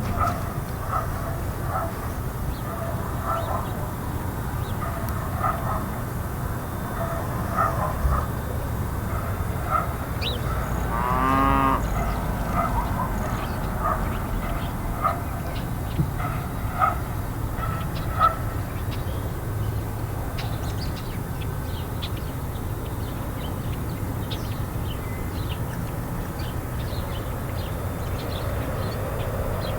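Farm ambience with a steady low rumble of road traffic. Over it, farm fowl give short repeated honking calls through the first half, and one longer drawn-out animal call comes about a third of the way in. Small birds chirp in the later part.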